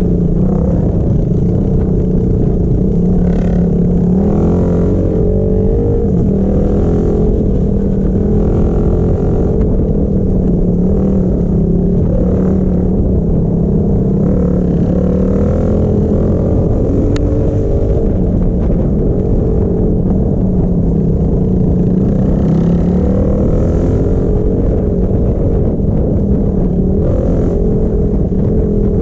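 Dirt bike engine running on a trail ride. Its pitch rises and falls with the throttle and never stops.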